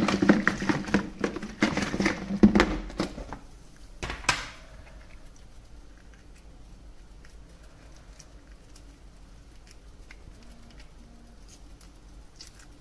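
Hard-boiled eggs rattling and knocking against each other and the walls of a lidded plastic tub as it is shaken, cracking their shells so they peel easily. The rattling stops after about three and a half seconds, with one more knock just after. Then come only faint ticks as the cracked shell is peeled off by hand.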